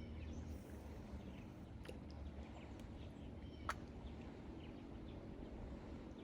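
Faint outdoor background: a steady low rumble with faint bird chirps scattered through it, and a single sharp click a little past halfway.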